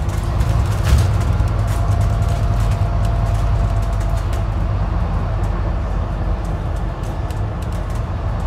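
Scania N25UD-chassis Alexander Dennis Enviro400 City double-decker bus under way, heard from the upper deck: a steady low engine and road drone with frequent light rattles and clicks from the body and fittings.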